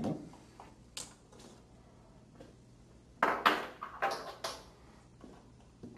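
A guitar cable's metal jack plugs being pulled from the test adaptors and set down on a bench: a faint click about a second in, then a quick cluster of clatters and knocks near the middle.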